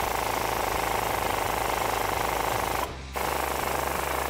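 Cordless impact gun hammering as it spins a truck's upper ball joint stud on an 8 mm socket. It is a steady, rapid rattle of blows that stops briefly about three seconds in, then starts again.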